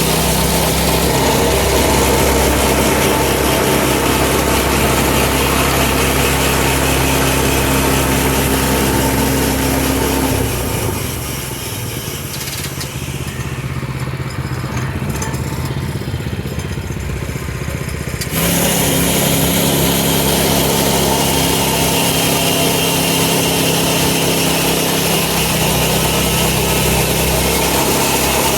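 Portable band sawmill's engine running steadily. About ten seconds in it turns quieter and duller for some eight seconds, then comes back at full level all at once.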